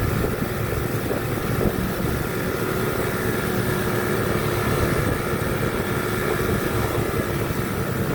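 Tour bus engine running steadily with a low rumble.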